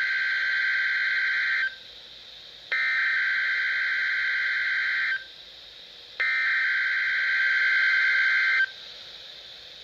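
NOAA Weather Radio SAME header for a Required Weekly Test: three bursts of digital data tones, each about two and a half seconds long, separated by a second of low radio hiss. The last burst stops about nine seconds in.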